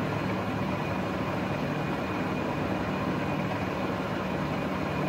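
Steady drone of running machinery with a low hum, unchanging throughout.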